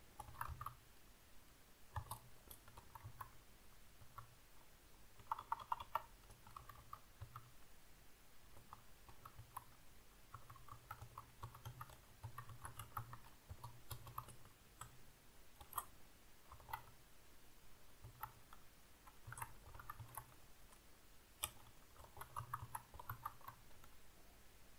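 Computer keyboard typing: faint, scattered keystrokes in short irregular runs with pauses between them, typing out a terminal command.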